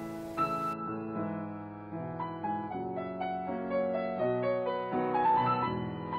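Background piano music: a melody of separate notes over held low notes.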